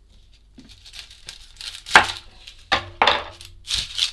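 A kitchen knife cutting through onions on a wooden cutting board. There are several short, sharp cuts and knocks, the loudest about two seconds in, along with the crackle of dry onion skin.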